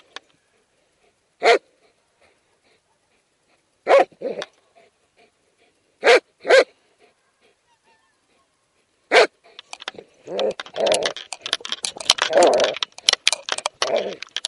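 Dogs barking: single sharp barks every second or two, then a dense flurry of barking, growling and scuffling close to the microphone in the last few seconds.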